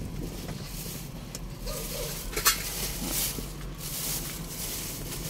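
Steady low hum of an idling engine, with a single sharp metal clink about two and a half seconds in as an aluminium pot is shifted on the grate of a portable butane stove.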